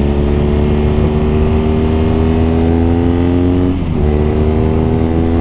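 BMW R nineT's 1170 cc boxer twin pulling under acceleration, its note rising steadily, then dropping sharply on an upshift about four seconds in before climbing again.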